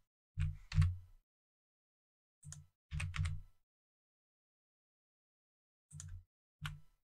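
Computer keyboard keys and mouse buttons clicking in short groups: about seven clicks, each with a dull thump, as shortcut keys are pressed and the mouse is clicked.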